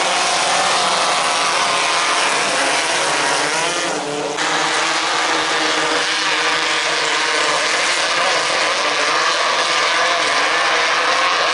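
Several 1600cc off-road racing buggies with air-cooled VW flat-four engines running hard together as a dense, steady mix of engine notes. The mix dips briefly about four seconds in.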